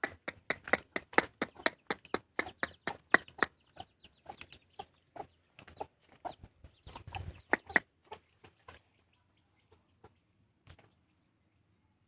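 A tame mandar (a rail) calling in a quick series of short, sharp notes, about four a second, for the first three and a half seconds. The calls then come more irregularly and grow fainter, with a last louder pair near eight seconds before they die away.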